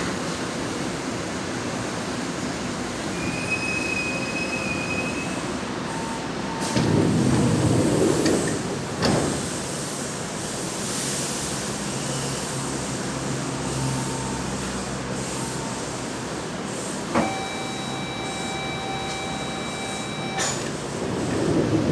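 Trensurb Série 100 Hitachi electric train running, heard on board: a loud, steady rumble of traction motors and wheels on rail, with a brief high wheel squeal a few seconds in and a louder surge about seven seconds in. Near the end a steady high tone sounds for about three seconds, starting and stopping with a click.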